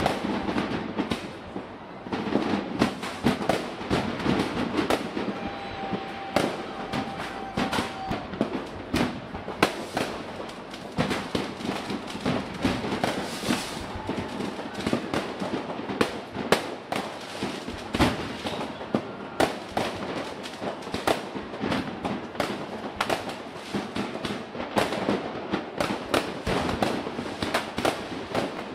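Fireworks going off in a dense barrage: many rapid bangs and crackles one after another, with no let-up.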